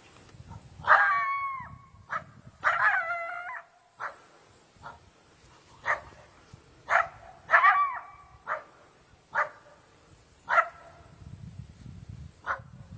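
Coyote barking and bark-howling, a territorial warning at the intruding dog: two longer wavering howl-barks about a second and three seconds in, then a string of short sharp barks roughly every second.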